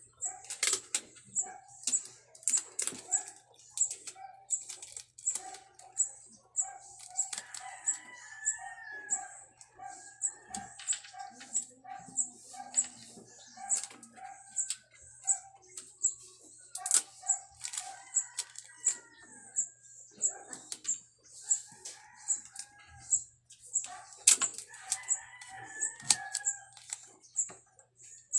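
Chickens in the background: roosters crowing several times and birds clucking in a quick, steady series. Close by, sharp clicks and rustles of paper and tape being handled.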